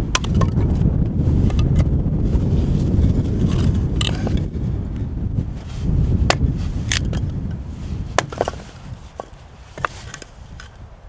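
Strong wind buffeting the microphone, with scattered knocks and scrapes. The wind noise drops away about eight seconds in, leaving the knocks.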